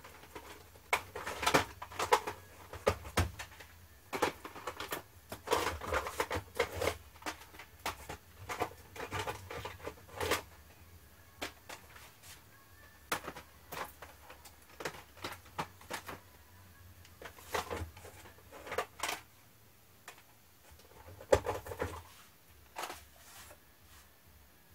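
Plastic cassette tape cases clicking and clattering against each other in quick irregular handfuls as they are taken from a cardboard box and slid onto shelves. The knocks come thick at first and thin out to a few near the end.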